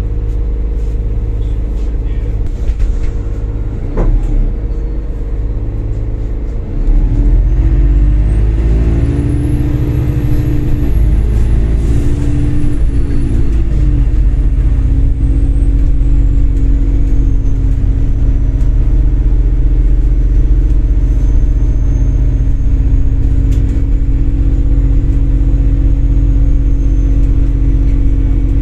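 MAZ-203 city bus heard from inside the passenger cabin: the engine idles steadily at a stop, with a knock about four seconds in. At about seven seconds it grows louder and its pitch rises and shifts as the bus pulls away and gathers speed. A thin high whine climbs, then slowly sinks and holds while the bus drives on.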